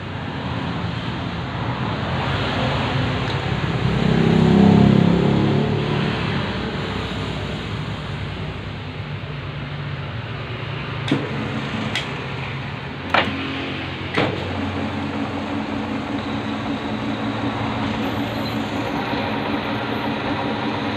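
Metal lathe running steadily while turning a PTFE (Teflon) bolt, with four sharp knocks in the middle stretch and a steady pitched hum from the machine after them.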